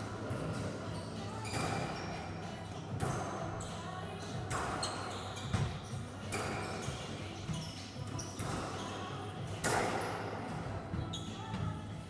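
Squash rally: the ball cracks off rackets and the court walls about every second and a half, each hit ringing in the hard-walled court.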